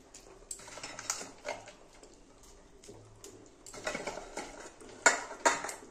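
Fried fish-roe pieces being dropped one by one into a simmering curry in a steel kadai, with soft splashes and light metal clinks and knocks against the pan; the two loudest knocks come near the end.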